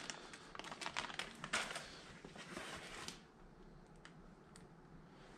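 Hands handling small metal screw-in tire studs and the impact driver's magnetic socket: rustling with quick light clicks for about three seconds, then only a few faint clicks.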